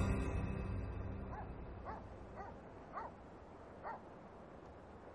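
Background music fading out, then five short, faint rising calls from an animal about half a second apart, like a distant small dog yipping.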